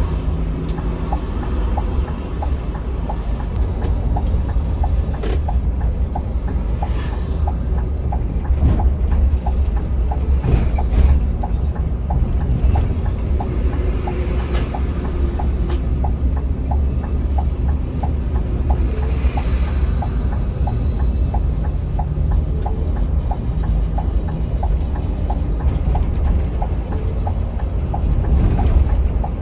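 Scania K360iB coach on the move: a steady, heavy low rumble of engine and road noise, with a light regular ticking about twice a second and a few scattered knocks.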